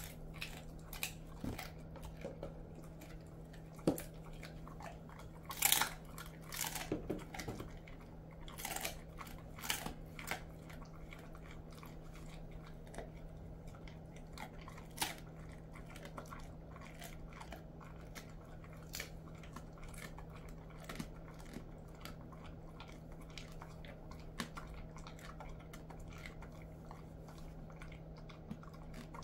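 Jindo dog chewing a dried chicken foot treat: crisp crunches of bone and skin, frequent and loudest over the first ten seconds or so, then sparser, quieter bites.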